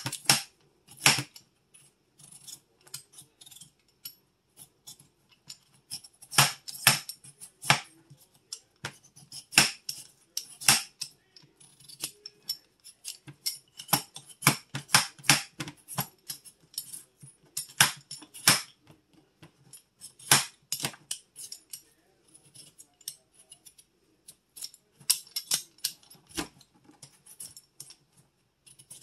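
Hand-held vegetable peeler scraping the skin off a russet potato in quick, irregular strokes.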